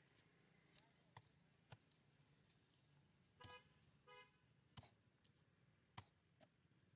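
A large knife chopping through a fish on a wooden block, a few sharp knocks spread out, the loudest near the end. Two short vehicle-horn toots sound in the middle, one after the other.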